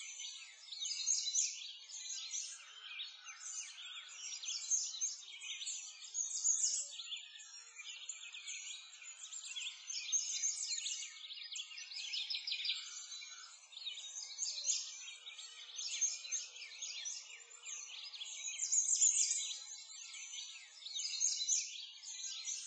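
Many small songbirds chirping and twittering together, a dense high-pitched chorus that swells and fades every few seconds.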